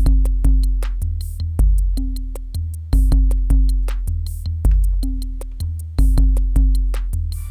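Electronic drum-machine beat: deep, long sub-bass kicks with a repeating bass note under a steady, quick tick of hi-hats.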